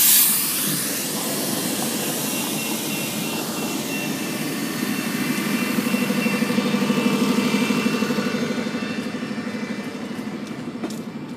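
Transit shuttle bus idling at a stop, its engine a steady hum that grows louder near the middle and eases off toward the end. A hiss of air at the start fades over a couple of seconds, typical of the bus's air brakes.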